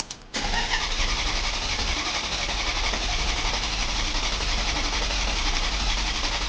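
After a few quick clicks, the starter of a 2007 Maserati Quattroporte's V8 cranks the engine over steadily without it catching: a crank-no-start.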